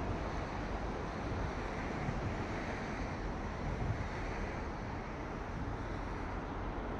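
Wind blowing across the microphone: a steady rushing noise with a low, buffeting rumble.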